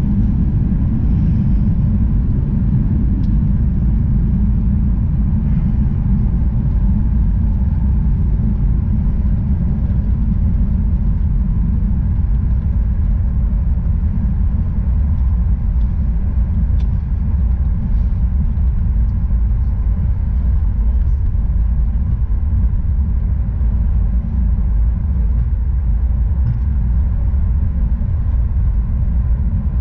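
Boeing 737 MAX 8 taxiing: a steady low rumble of the engines at idle and the wheels rolling on the taxiway, heard through the cabin window.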